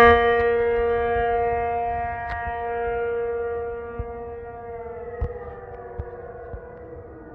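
Outdoor tornado warning siren holding a steady tone that slowly fades, then winding down with a falling pitch from about five seconds in as it shuts off.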